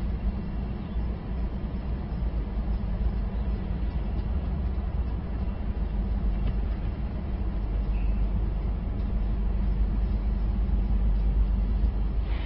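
Steady low rumble of city background noise picked up by an outdoor webcam microphone high on a building.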